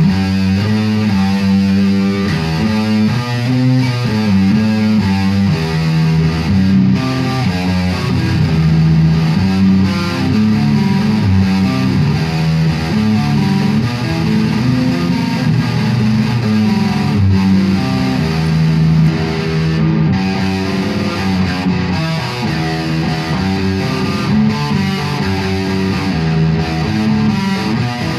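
1966 Gibson Les Paul Custom electric guitar played through an amplifier: a continuous stream of notes and chords.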